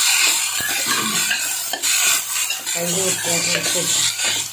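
Chopped bitter gourd and onion being stirred with a spatula in a pan of hot coconut oil: steady sizzling, with the spatula scraping and clicking against the pan.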